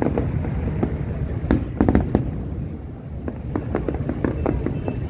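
Large fireworks display: a continuous low rumble of bursting shells with many sharp bangs and crackles on top, several coming in quick succession around two seconds in and again in the second half.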